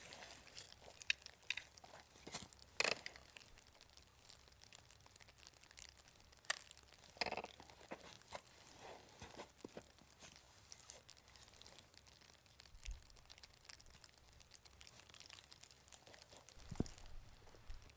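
Scattered crinkling, crunching and clicking, with a few sharper crunches and a low thud near the end.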